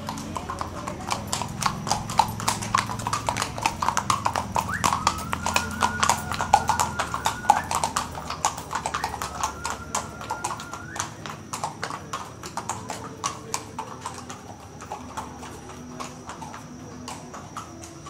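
Horses' hooves clip-clopping on a paved street as two ridden horses walk past. The hoofbeats are loud and dense at first and grow fainter through the second half as the horses move away.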